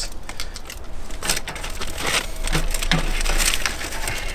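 Aluminium foil crinkling and crunching, with irregular sharp clicks and scrapes of metal tongs on the grill grate, as a foil-wrapped rack of ribs is lifted off the grill.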